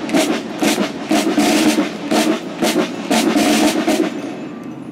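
Military band's snare drums playing a march beat of sharp irregular strokes, stopping about four seconds in.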